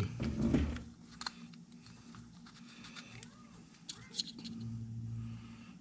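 Faint scattered clicks and rustles of hands working a small rubber spark plug boot and a tube of dielectric grease, over a steady low hum.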